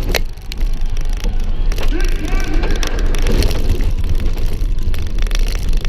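1998 Dodge Durango racing over a rough dirt tough-truck course, heard from on board: the engine is running hard under throttle, with a heavy low rumble, and the body and suspension clatter and knock over the bumps.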